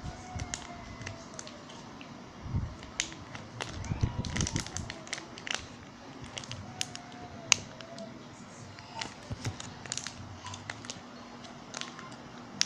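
Glue-and-detergent slime being stirred and kneaded by hand: irregular sticky clicks and small squelches, with a few dull knocks about two and a half and four seconds in.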